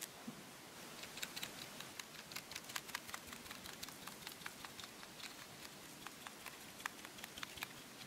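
A single sharp click at the very start, then powdered sugar being sifted through a small sieve: a run of light, irregular ticks, several a second, from the sieve being tapped, stopping shortly before the end.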